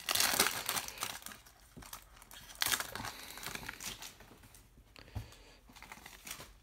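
Shiny foil wrapper of a baseball card pack being torn open and crinkling, loudest in the first second and again briefly about two and a half seconds in. After that, quieter handling of the cards.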